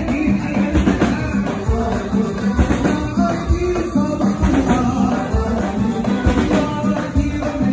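Moroccan wedding troupe performing live: men singing over a steady beat of hand drums with rattling percussion.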